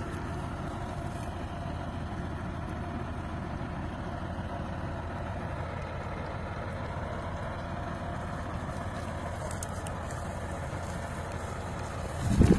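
KAMAZ dump truck's diesel engine idling steadily. About twelve seconds in, a loud rush of noise hits the microphone.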